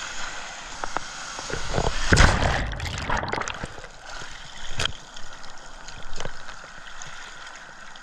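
Ocean surf washing over a GoPro in its waterproof housing: a wave breaks over the camera about two seconds in with a loud rush and gurgle of water, followed by lighter sloshing and a few sharp knocks.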